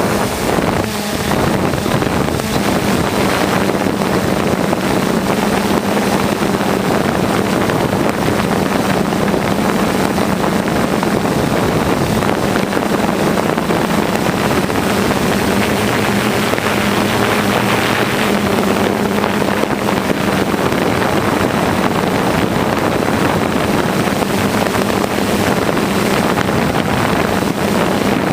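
Steady whir of a drone's motors and propellers, with a constant low hum and wind rushing over the microphone.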